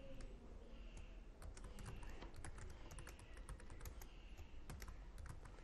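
Typing on a computer keyboard: light, uneven key clicks that come thick and fast after about a second.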